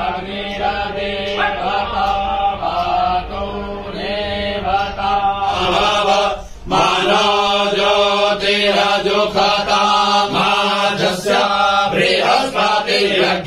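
Devotional mantra chanted to music, the sung lines held over a steady drone, with a brief break about six and a half seconds in.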